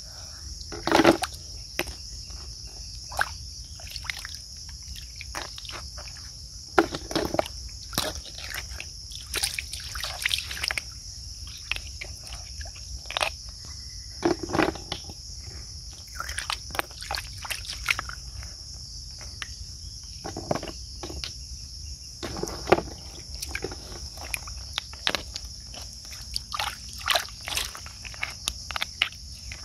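Hands splashing and sloshing in shallow muddy water as snails are grabbed and moved, in short irregular splashes, over a steady high-pitched insect chirring.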